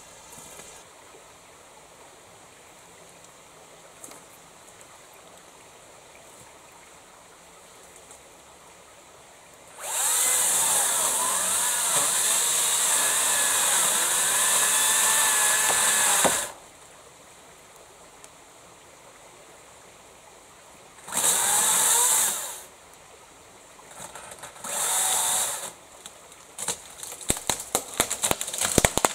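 Makita 36 V (18 V x2) brushless battery chainsaw cutting into a tea tree trunk: a whining run of about six seconds under load, its pitch wavering, then two short bursts a few seconds apart. Near the end comes a quick run of sharp cracks and snaps as the cut trunk breaks and falls.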